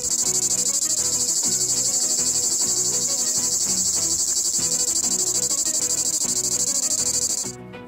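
Cicada singing: a loud, continuous high-pitched buzz with a fast pulsing texture, cutting off sharply near the end.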